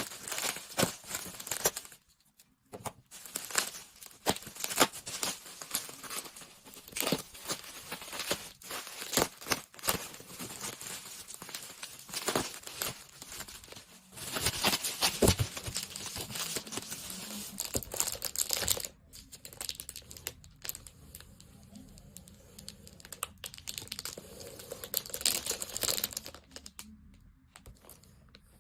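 Merchandise packaging unwrapped by hand: irregular crinkling and tearing of packaging with small sharp clicks and knocks. The handling grows louder and more continuous about halfway through, then quietens near the end.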